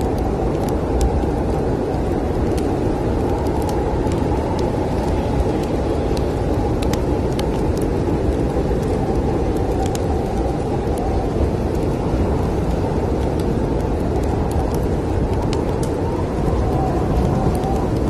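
Snowstorm wind blowing in a steady low rush with a faint whistling tone, over scattered small pops and crackles of a wood fire.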